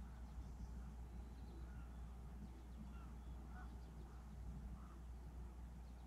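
Faint, scattered short bird calls over a low steady rumble.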